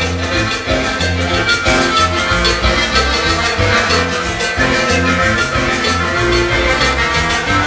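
Live Latin dance-band music with a steady beat, a bass line repeating under percussion and a melody instrument.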